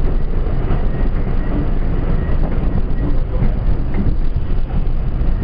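R32 subway train running at speed, heard from inside the front car: a steady rumble of wheels on rails with scattered light clicks and a faint high whine.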